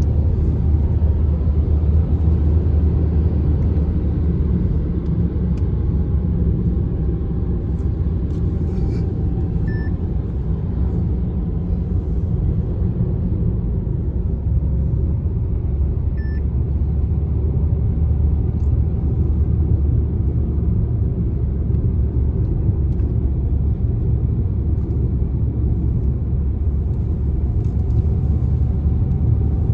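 Car driving along the road: a steady low rumble of engine and tyres, with a faint engine note drifting slowly in pitch. Two short, faint beeps sound about ten and sixteen seconds in.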